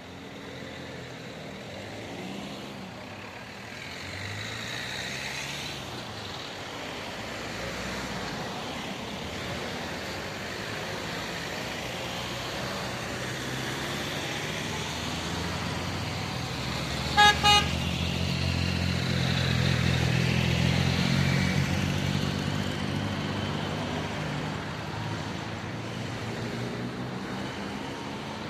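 Cars driving over the level crossing one after another, engines and tyres swelling and fading as each passes. About two-thirds of the way in a vehicle horn gives two quick short toots, just before the loudest pass of a vehicle.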